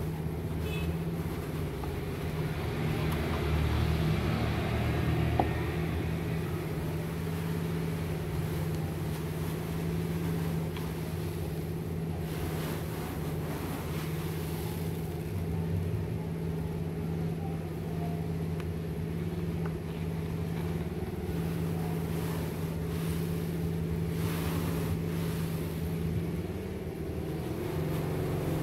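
A steady low motor hum, like an engine running, with soft rustling swishes about 3 seconds in, around 12 seconds and around 24 seconds.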